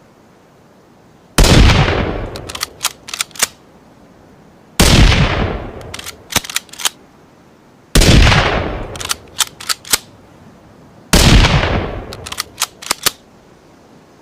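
Four rifle shots from a blended Ruger American bolt-action rifle sound effect, about three seconds apart, each with a long echoing tail. After each shot comes a quick run of sharp metallic clicks, the bolt being worked to chamber the next round.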